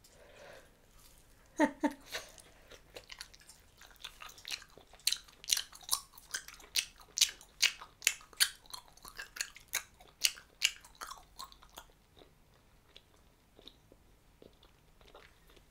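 Wet, open-mouthed chewing of a big wad of bubble gum: a run of sticky smacking clicks, about two a second, from about four seconds in until about twelve seconds in. There is one louder sharp smack near two seconds in, and only faint, sparse smacks near the end.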